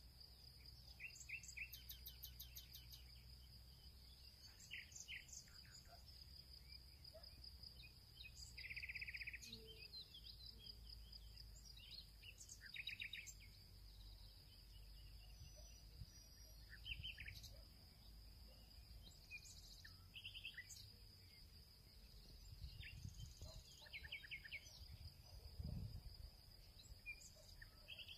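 Faint background of birds chirping on and off over a steady high insect trill, with a couple of soft low thumps near the end.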